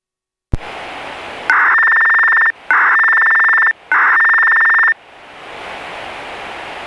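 Disaster-prevention radio audio: a sharp click and static hiss, then three identical electronic beeps of about a second each with short gaps between them. The static hiss returns after the beeps.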